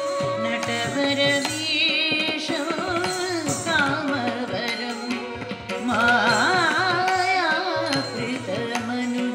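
Carnatic devotional music: a voice singing an ornamented, wavering melody over a steady drone and hand-drum strokes, the melody rising higher and louder about six seconds in.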